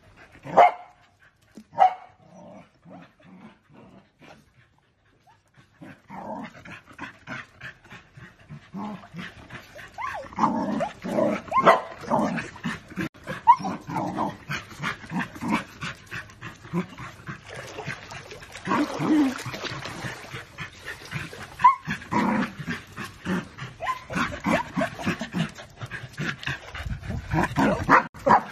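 Golden retrievers barking: two sharp barks in the first two seconds, then, after a short lull, a long run of rapid barks several a second.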